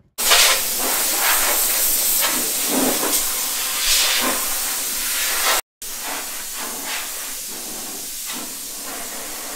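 Compressed air hissing steadily from a paint spray gun spraying 2K epoxy primer onto a sandblasted Vespa body. The hiss breaks off for an instant a little past halfway, then carries on slightly quieter.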